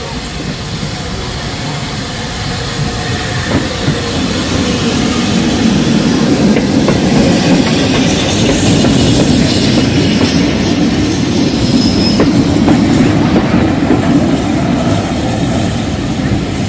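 BR Standard Class 5 steam locomotive 73156 approaching and running past at close range, then its coaches rolling by on the rails. The sound grows louder over the first six seconds or so and stays loud while the coaches pass.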